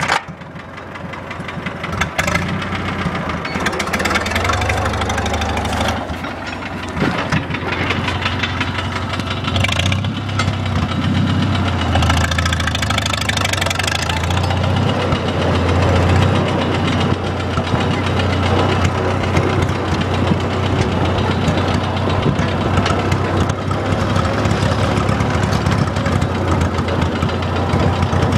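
Farmall H tractor's four-cylinder gasoline engine running steadily under way, growing louder over the first few seconds and then holding even.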